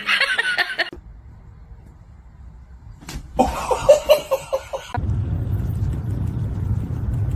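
A person laughing in two short bursts of quick repeated 'ha' sounds, the first at the start and the second about three and a half seconds in. A steady low rumble follows from about five seconds in.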